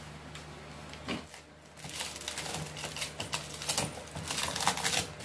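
Cardboard packaging and a wooden shipping crate being handled: a knock about a second in, then a busy run of scraping, rustling and small clicks as a boxed TV wall bracket is pulled out from inside the crate. A low steady hum sits underneath.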